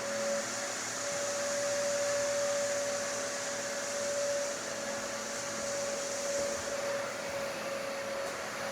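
Hampton Bay Mainstays ceiling fan running: a steady rush of air with a constant humming tone from the motor.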